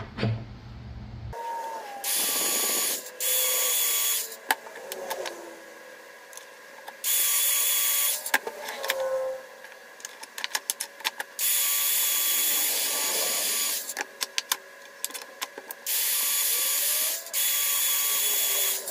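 Angle grinder with a 120-grit flap disc grinding a steel forestry-mulcher tooth held in a vise. It makes six passes of one to three seconds each, with the motor running and light clicks between them. The worn cutting edge of the tooth is being ground flat to sharpen it.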